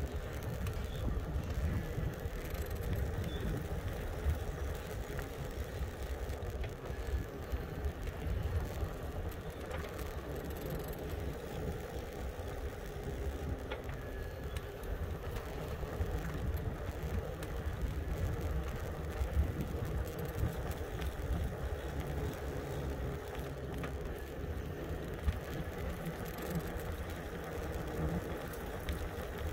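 Riding an e-bike: wind rumbling on the microphone over steady tyre noise, with a faint hum and a few scattered clicks.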